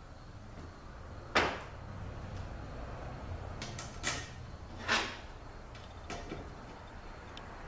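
A few sharp knocks and clicks from handling the parts and bolts of a Mercedes 722.9 transmission pump during assembly. The loudest comes about a second and a half in, with more around four and five seconds in.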